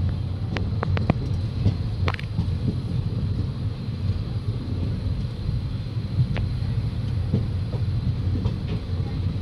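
Passenger train coaches running on the track, heard at an open coach doorway: a steady low rumble with sharp clicks from the wheels on the rails, several in the first couple of seconds and another about six seconds in.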